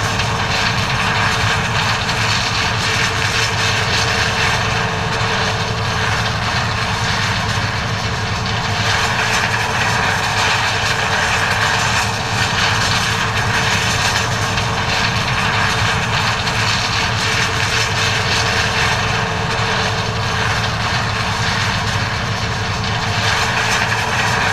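John Deere 9400 combine running steadily while harvesting corn: an even engine and machinery drone.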